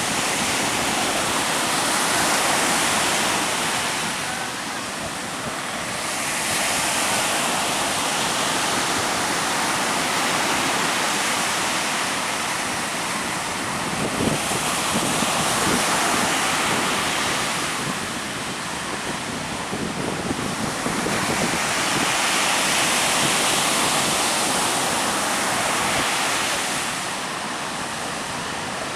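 Sea surf breaking on the shore in strong wind: a continuous rush of waves that swells and falls back every several seconds.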